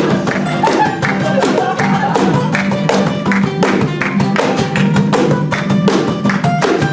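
A live rock band playing an instrumental passage, with guitar over a fast, steady drum beat.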